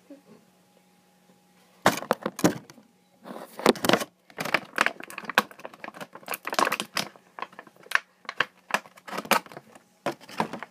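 Plastic toy packaging crackling and crinkling as it is handled, a rapid run of sharp crackles and clicks that starts about two seconds in.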